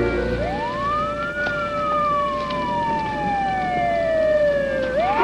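A siren wailing: it rises over about a second, falls slowly over several seconds, then starts to rise again near the end, over held notes of dramatic music.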